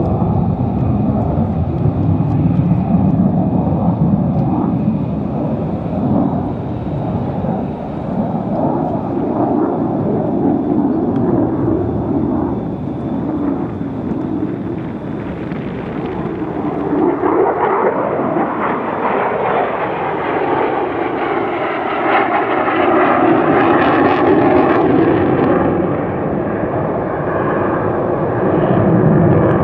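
F-35A Lightning II fighter jet in flight, its single Pratt & Whitney F135 afterburning turbofan giving a continuous loud rumbling jet noise. In the second half, tones sweep up and down in pitch as the jet passes and manoeuvres.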